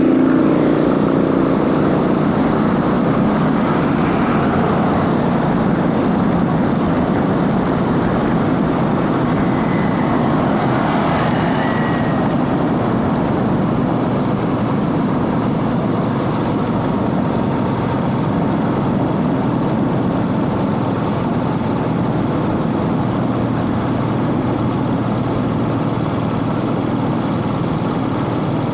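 Motorcycle running steadily, its engine and intake sound mixed with drive-chain noise, holding an even level throughout.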